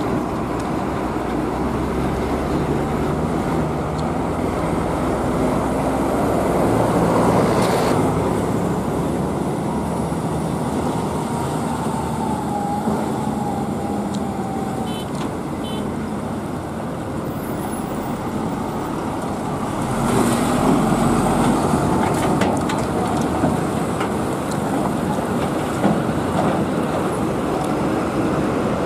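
Heavy TATA tractor-trailer's diesel engine running as it pulls a heavy load slowly past, with road traffic noise. The engine sound swells about seven seconds in and again about twenty seconds in.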